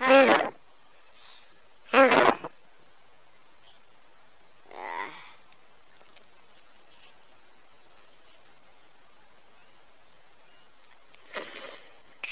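Crickets chirring steadily on a high pitch. Four short, wordless voice sounds cut through: two at the start and about two seconds in, a fainter one about five seconds in, and a breathy one near the end.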